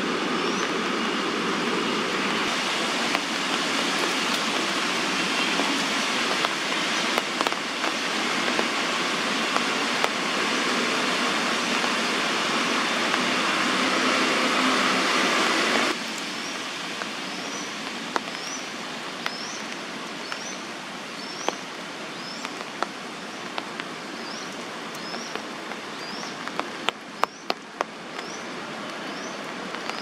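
Young crested goshawk giving a long run of short, high, upward-flicking chirps, more than one a second, as it presses in to snatch food from its sibling. Under the chirps runs a steady background hiss that drops suddenly partway through, with a few sharp clicks near the end.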